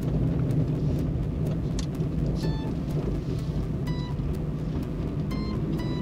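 Steady engine and road drone heard inside a van's cabin as it drives, with light background music of short plucked notes over it.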